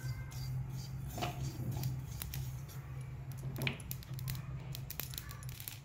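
Silicone spatula stirring poppy seeds as they dry-roast in a metal kadhai: a few soft scrapes and light clicks over a steady low hum.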